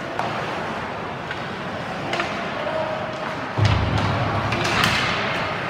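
Ice hockey play heard from the stands: sharp clacks of sticks and puck over the rink's hubbub, with a louder low rumble starting about three and a half seconds in.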